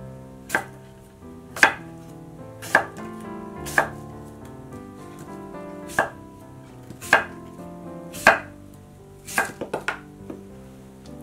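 A chef's knife cuts through apple and knocks against a wooden cutting board, about one cut a second, then a quick run of four or five cuts near the end. Soft background music plays underneath.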